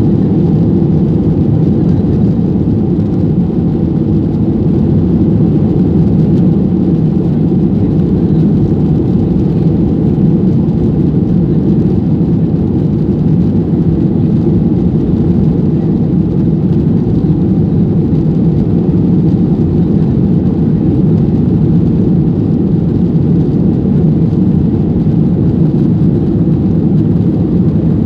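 Boeing 737-800's twin CFM56 jet engines at high power, heard from inside the cabin during the takeoff roll, with the rumble of the wheels on the runway. A loud, steady, deep noise.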